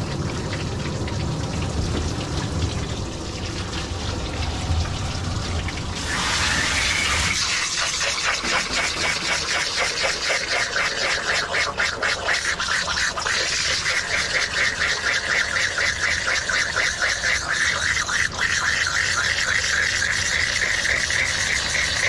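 Water spraying from a hand-held bathing hose nozzle pressed into a wet Sheltie's coat, a steady hiss that turns louder and brighter about six seconds in.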